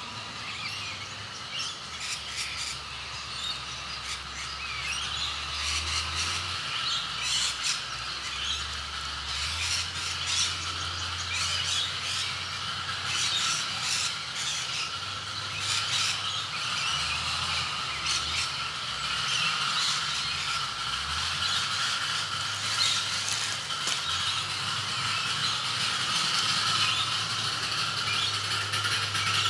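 Birds chirping and calling over a steady low rumble that slowly grows louder, as the miniature tramway train approaches along the track.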